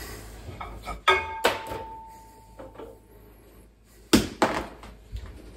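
Handling knocks and clinks as a small toy figure is lifted off a microwave's glass turntable. A sharp clink about a second in rings on as a fading tone for about two seconds, and a few more short knocks follow near the end.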